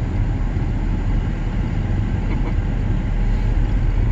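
Steady low rumble of a Ford Ranger pickup driving at low speed, engine and road noise heard from inside the cab.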